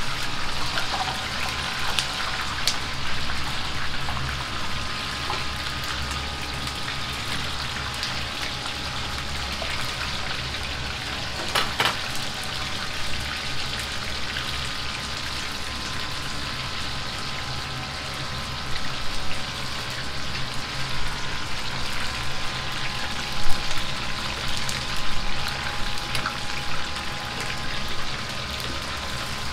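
Battered chicken pieces deep-frying in a wok of hot oil: a dense, steady crackling sizzle over the low hum of a high-flame gas wok burner. Sharper pops and clicks come through in the last third, with the ladle working the pieces in the oil.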